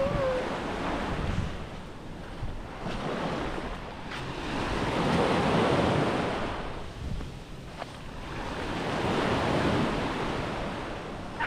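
Small waves washing up on a sandy beach, swelling twice, about five and nine seconds in, with wind rumbling on the microphone.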